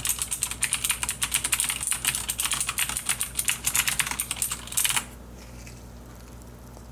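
Fast typing on a Logitech G610 mechanical keyboard with clicky Cherry MX Blue switches, a dense run of keystroke clicks that stops suddenly about five seconds in.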